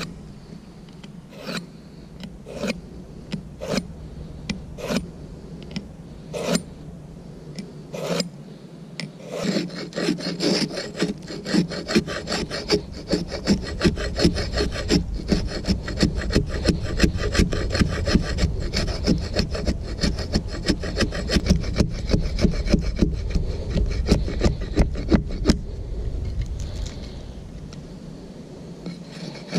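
Wood being worked by hand with cutting tools: first single chopping strikes about a second apart, then from about ten seconds in a long run of quick rasping strokes of a blade on wood.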